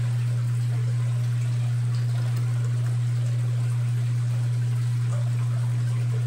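AQQA electric aquarium gravel vacuum running, its pump giving a steady low hum while water pours and trickles as it sucks tank water and debris out of the gravel.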